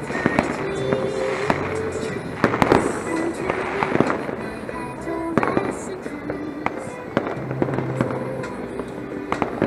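Fireworks and firecrackers going off in many sharp bangs and crackles at irregular intervals, densest about two and a half to four seconds in.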